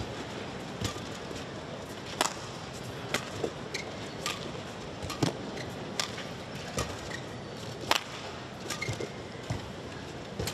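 Badminton rally: rackets striking a shuttlecock back and forth, sharp cracks about once a second, over the steady background noise of the hall.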